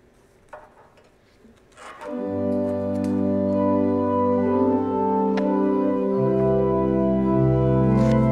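Pipe organ begins a prelude about two seconds in, after a near-quiet pause, playing steady sustained chords. A deep pedal bass joins about six seconds in.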